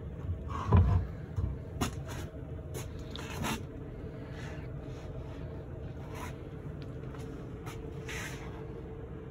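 A few knocks and scrapes of a loose plywood board being pushed and shifted across a plywood subfloor, with footsteps on the boards, all in the first few seconds, over a steady low hum.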